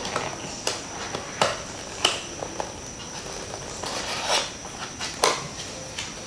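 Plastic packaging rustling, with several sharp clicks and a longer rustle about four seconds in, as accessories are pulled out of an action camera's box. A faint steady high-pitched tone runs underneath.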